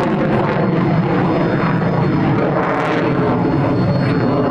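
Rolls-Royce Pegasus turbofan of an AV-8B Harrier II Plus jump jet running: a loud, steady jet roar with several high whining tones held above it.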